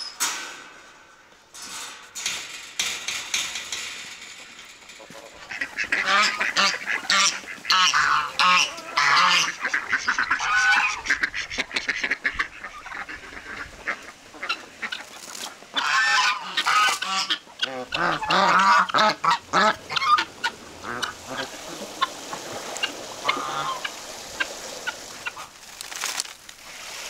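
Farmyard poultry flock (domestic ducks among chickens and a turkey) calling noisily, in two loud bouts about six and sixteen seconds in, with scattered quieter calls in between and near the end.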